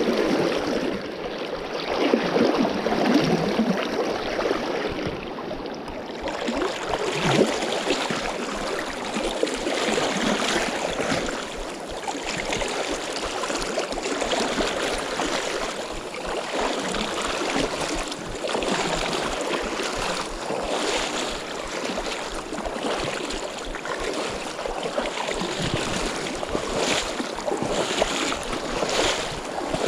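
River current rushing and splashing close by, a steady noisy wash that swells and eases.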